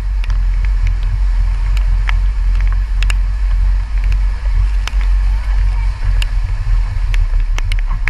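Jeep driving through floodwater, heard on a camera mounted on the vehicle as a steady low rumble, with sharp clicks scattered irregularly through it.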